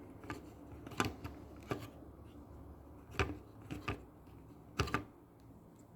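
A string of sharp clicks and taps of small hard parts being handled, the loudest about one, three and five seconds in: the opened pen multimeter and its fuse being handled.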